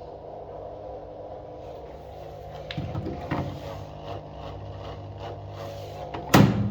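Washing machine motor humming steadily, with scattered clicks and knocks and one loud thump near the end.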